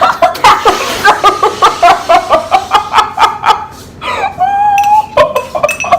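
High-pitched laughter, about five rapid ha-ha pulses a second, followed by a long high-pitched squeal.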